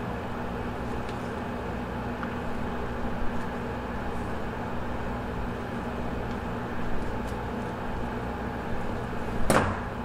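Steady mechanical hum of room machinery with faint handling noises, then near the end a short, loud metallic clatter as steel shears are set down on a stainless steel table.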